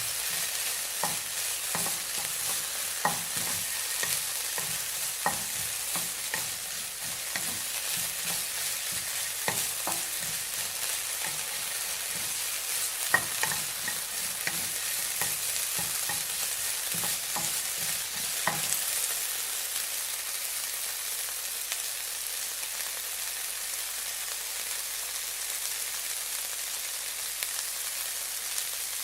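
Food frying: a steady high sizzle with frequent sharp pops and crackles. About two-thirds of the way through the popping stops, leaving only the even sizzle.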